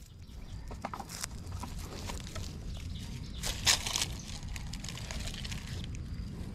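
Close handling noise while a freshly caught fish is held and unhooked: light clicks and rustling on dry leaves, with one brief, louder rustle about three and a half seconds in.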